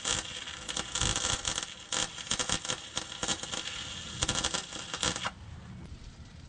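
Welding arc crackling while tack-welding an exhaust pipe joint, then cutting off suddenly about five seconds in.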